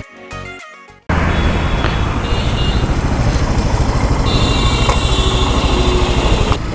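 Background music fades out in the first second. Then a single-cylinder Royal Enfield motorcycle engine is idling with a steady, even pulse.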